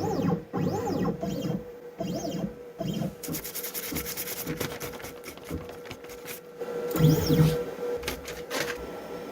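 Desktop CNC router's stepper motors whining in repeated rising and falling sweeps as the axes move, with short pauses between moves.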